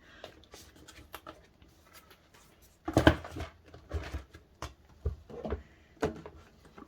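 Hands handling a DVD set and its packaging: rustling with scattered clicks and knocks, the loudest a thump about three seconds in.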